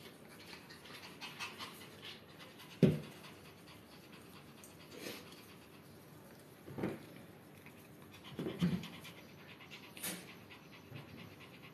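A dog panting, with a few knocks and handling sounds, the loudest a sharp knock about three seconds in.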